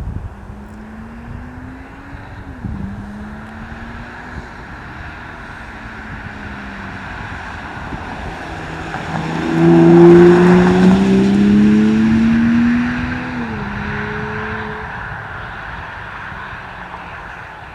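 BMW X5 50e's turbocharged inline-six running through a DCE Parts V2 exhaust with its valves open, accelerating past: the engine note rises through the gears with upshifts about three seconds in and again about thirteen seconds in. It is loudest as the car passes, from about ten seconds in, then fades.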